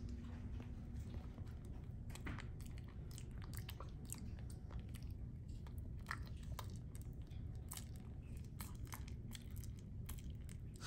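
Capuchin monkey chewing banana with its mouth open: a run of soft, irregular mouth clicks and smacks.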